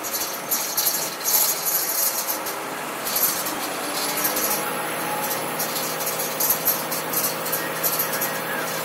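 Truck engine running while driving on a gravel road, heard from inside the cab, with an irregular crackle and rattle from the gravel under the tyres. The engine note rises a little about four and a half seconds in.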